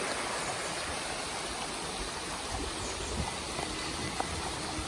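Shallow rocky creek running full after heavy rain: a steady rush of water over the rocks.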